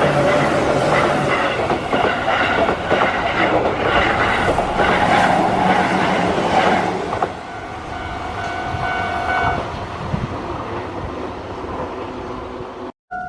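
A Keihan electric train passes over a level crossing, its wheels clattering on the rail joints while the crossing bell rings. The train noise falls away about seven seconds in and the crossing bell goes on ringing, with a brief dropout near the end.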